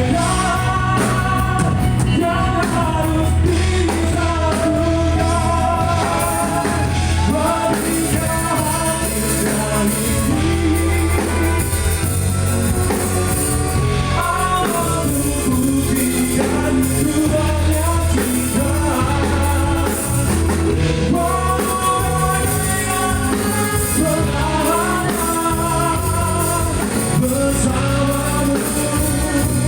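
A song with singing over instrumental accompaniment, the voice's melody wavering over a steady bass line.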